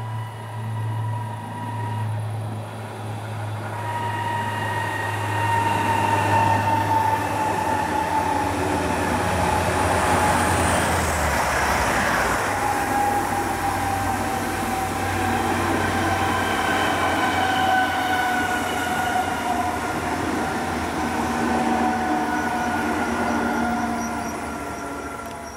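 Three coupled DB Class 423 S-Bahn electric multiple units passing at speed. The sound builds as they approach, is loudest about halfway through, and fades toward the end. A high whine falls slowly in pitch as the train goes by.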